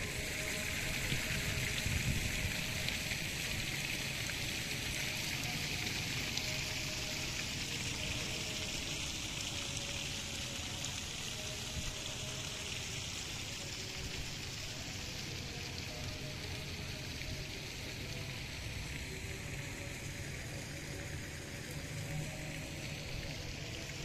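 Steady hissing outdoor background noise, with faint wavering tones beneath it.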